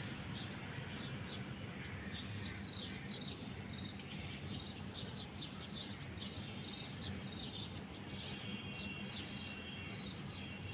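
Bird chirping over and over, short high calls about twice a second, over a steady background hiss.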